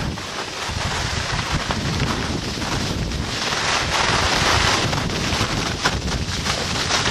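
Wind buffeting the microphone of a camera carried down a ski slope at speed, mixed with the hiss and scrape of snow under the rider. It grows louder about three seconds in.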